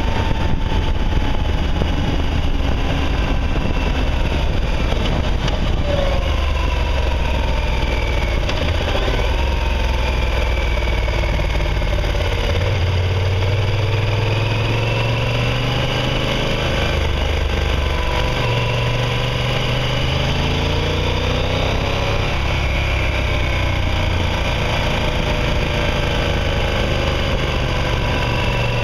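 Motorcycle engine heard from on board while riding, under steady wind and road noise. The engine note rises and falls with the throttle through the bends.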